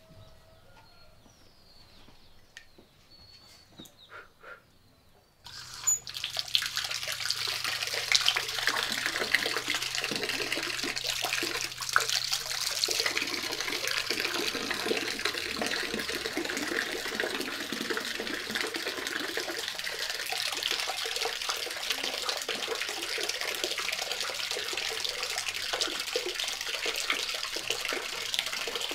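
A few faint bird chirps, then about five seconds in a stream of water from an outdoor tap starts suddenly and keeps pouring and splashing into a concrete washing basin (pila).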